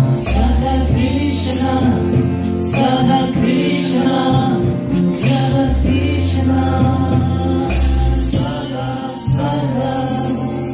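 Live kirtan music: voices singing a devotional chant in a group over deep held bass notes and hand-drum strikes, with steadier instrumental tones coming forward near the end.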